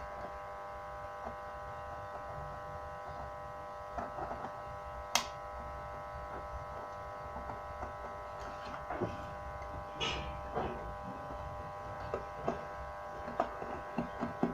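Snap-off utility knife cutting and scraping along packing tape on a cardboard parcel: scattered small clicks and scratches, a sharp click about five seconds in and more of them in the second half. Under it a steady hum.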